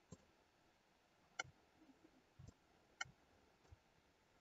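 Computer mouse buttons clicking: three sharp, short clicks a second and a half or so apart, with a couple of fainter taps between them, in a quiet room.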